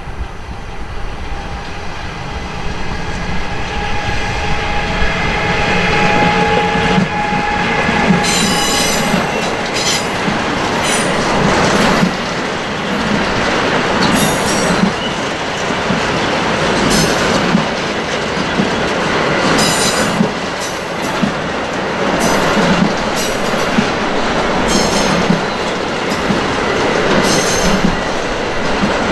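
Electric locomotive coming past with a steady whine, followed by a long freight train of loaded double-deck car-carrier wagons rolling by. The wheels clatter over the rail joints, with repeated sharp, high-pitched wheel squeals.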